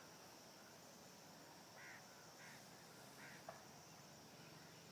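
Near silence with three faint short calls from a distant bird, about two to three and a half seconds in, and a single faint click just after them.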